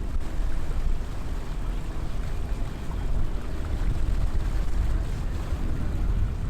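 Barge engine running steadily under way, mixed with heavy wind rumble on the microphone.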